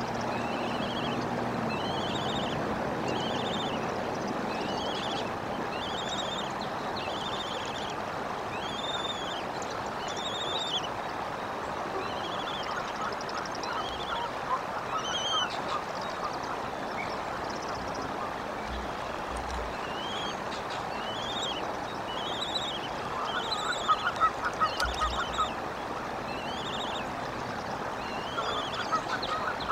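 Downy bald eaglet peeping for food: a long series of thin, high, arched chirps, roughly one a second, with short pauses between runs. A steady hiss lies under it, and a burst of louder crackling comes about three-quarters of the way through.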